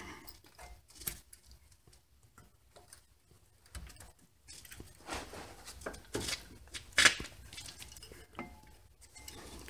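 Scattered metal clicks and scrapes of a steel brake-pad anti-rattle spring and its guide pins being worked by hand into a front brake caliper, with the sharpest click about seven seconds in.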